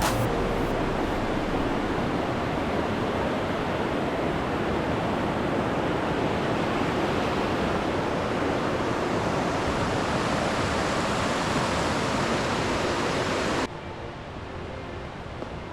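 Rushing water from a stream or waterfall, a steady even rush that drops abruptly to a quieter hiss near the end.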